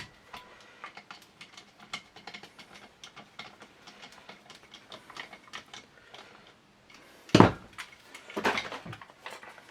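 Small metal shotgun parts being handled and fitted: scattered light clicks and clinks, with a louder knock about seven seconds in and a short clatter after it.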